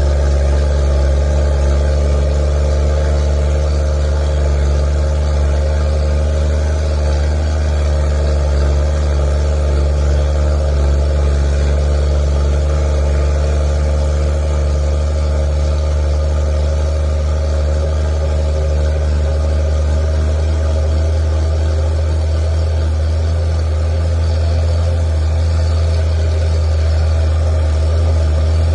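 Truck engine running at a steady speed with a deep rumble, its pitch holding constant throughout.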